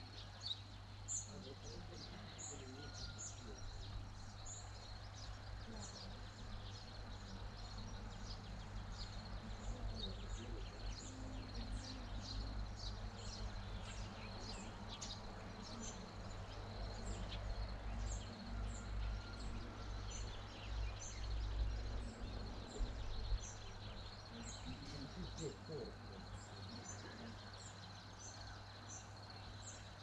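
Many small birds chirping, with short high calls repeated throughout, over a steady low rumble that swells for a few seconds in the middle.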